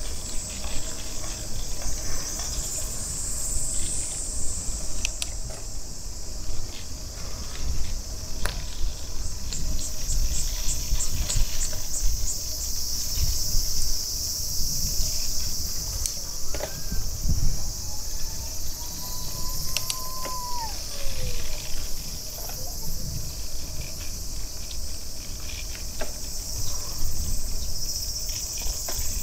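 Chorus of summer cicadas buzzing high and steady, with a stretch of quick pulses about ten seconds in, over a low rumble of wind and movement. Near the middle a faint whistling tone rises slowly and then falls away.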